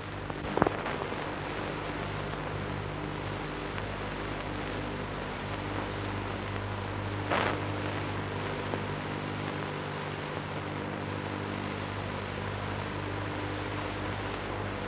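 Steady low hum and hiss of an old film soundtrack with no dialogue or music, marked by two brief clicks, one about half a second in and one about seven seconds in.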